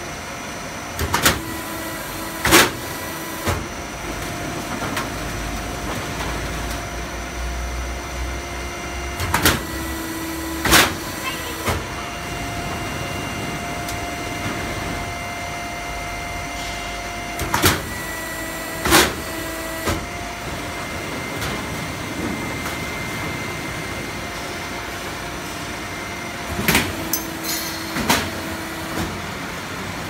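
Automatic HVAC duct manufacturing line running. Loud metal clanks come in pairs about every eight seconds as the galvanized steel sheet is stepped through and worked, over a steady machine hum.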